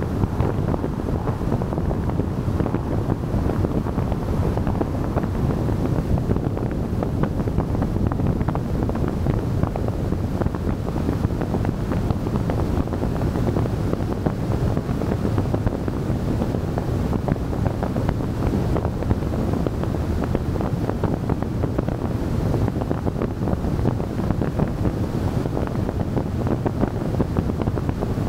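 Steady wind buffeting the microphone of a camera on a moving car, mixed with the rumble of the car running along the road.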